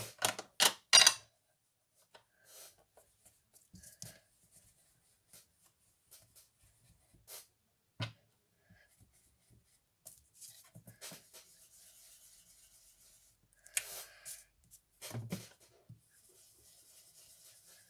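Soft brushing hiss of an ink blending brush being worked over card stock, with scattered taps and knocks from handling ink pads and the brush; the loudest knocks come about a second in.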